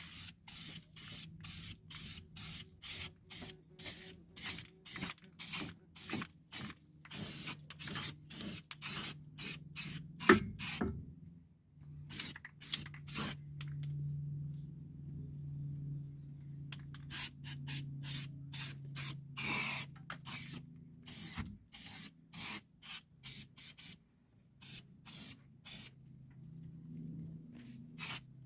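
Aerosol can of rubberized undercoating paint sprayed in quick short bursts, about three hisses a second, with a couple of brief pauses. A single sharp knock about ten seconds in, and a steady low hum underneath.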